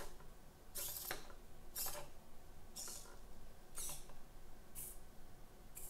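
Small hobby servo motors of an Arduino-driven robot arm whirring in short bursts about once a second as the arm steps from position to position.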